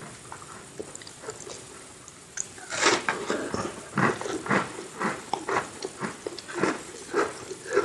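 Close-miked eating sounds: a loud bite into a crunchy chocolate sandwich cookie about three seconds in, then crunchy chewing at about two chews a second. Before the bite there are only small mouth clicks.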